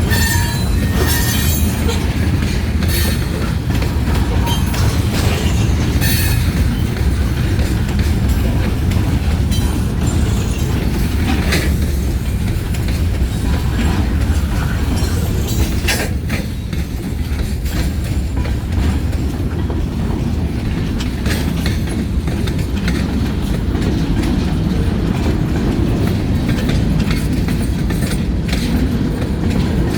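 Freight train rolling past: a steady loud rumble with repeated clicks of the wheels over the rail joints and some wheel squeal.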